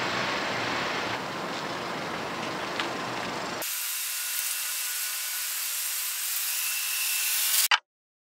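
Small flatbed truck's engine running at a distance as it tows a trailer around a practice course, under steady outdoor noise. About three and a half seconds in, the sound switches abruptly to a thinner hiss, and it cuts off to silence near the end.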